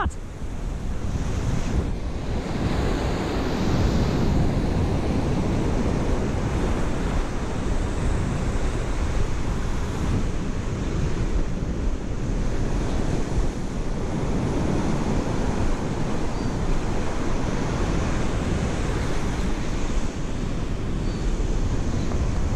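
Ocean surf breaking and washing up the sand, with steady wind buffeting the microphone.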